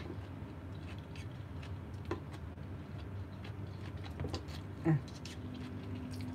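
Light scattered clicks of chopsticks against a plate as cucumber slices are picked up, with soft chewing over a low steady hum. A short voiced murmur comes about five seconds in.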